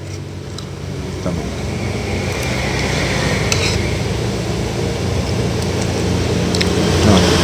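Road traffic passing close by: a low engine hum from a vehicle that grows steadily louder. A few light clicks of a metal spoon and fork on a plate sound over it.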